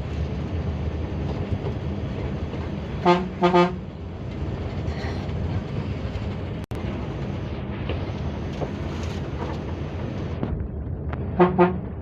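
Bus horn giving two short toots on one steady pitch about three seconds in, and two more near the end, over the steady drone of the ALS intercity bus's engine and road noise.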